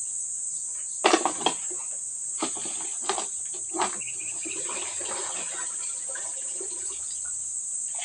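Steady high-pitched trill of insects, with a few sharp clatters and rustles of trash being pulled out of a clogged drainage canal, the loudest about a second in and the last around four seconds.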